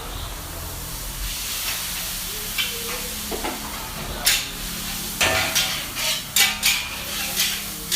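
Food frying in a pan with a steady sizzle, and in the second half a run of sharp clanks and scrapes of a cooking utensil against the pan as the food is stirred.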